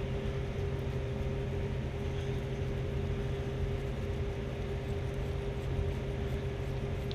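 A steady machine hum with a few constant tones, the drone of a fan or air-conditioning type motor running.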